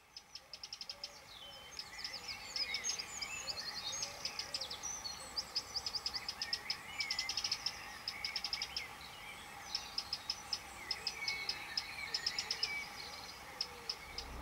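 Several songbirds singing together, a busy mix of fast high trills and whistled, sweeping phrases, fading in over the first couple of seconds, over a faint steady hum.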